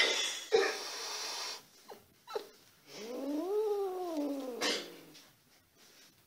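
Domestic cat hissing and yowling in an aggressive standoff with another cat: a long hiss, then a drawn-out yowl that rises and then falls in pitch, followed by another short hiss.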